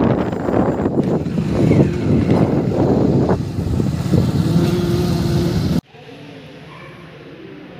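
Wind buffeting the microphone, loud and gusty, which cuts off suddenly about six seconds in, leaving a much quieter background.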